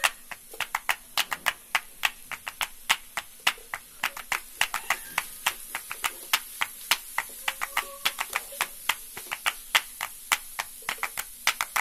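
Wooden spatula knocking and scraping against a nonstick kadai while vegetables are stir-fried, a rapid irregular clatter of several clicks a second over a faint sizzle.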